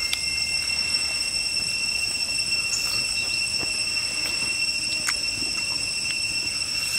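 Steady, high-pitched drone of forest insects, holding several unbroken tones, with a few sharp clicks.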